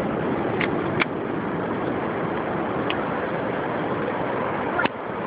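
Steady rushing noise of wind and surf with a bonfire burning, and four short sharp crackles from the burning wood.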